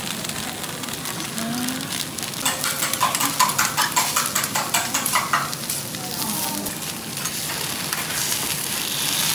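Food sizzling on a hot steel teppanyaki griddle, with a quick run of sharp metallic clacks of steel utensils striking the griddle plate from about two and a half to five and a half seconds in.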